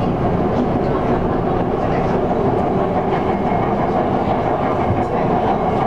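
Steady running noise of an LRT Megatren light-rail car moving along the track, heard from inside the car.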